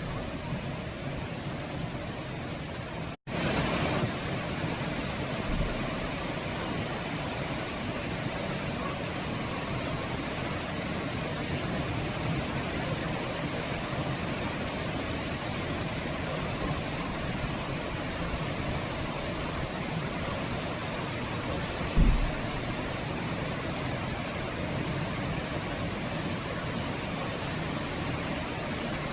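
Steady rain, an even hiss. It cuts out for an instant about three seconds in and comes back slightly louder, and a short low thump comes about 22 seconds in.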